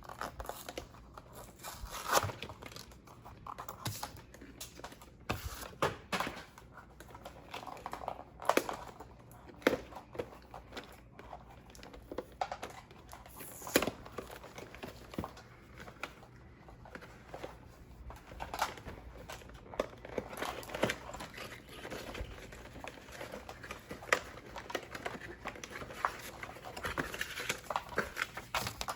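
Toy packaging being handled and opened: crinkling and tearing of plastic and cardboard, with many scattered short clicks and taps.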